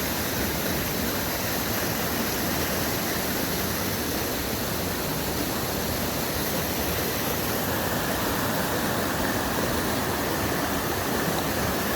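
Rushing water: a steady, even roar of fast-flowing water close to the microphone.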